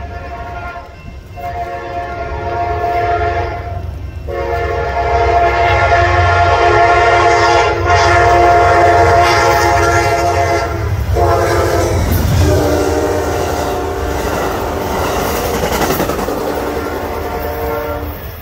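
Amtrak passenger train's diesel locomotive horn sounding a chord in repeated long blasts with short breaks, the train passing close at speed. About 12 s in the horn's pitch drops as the locomotive goes by. The rush and clickety-clack of the passing bilevel Superliner cars follow under the horn, which stops near the end.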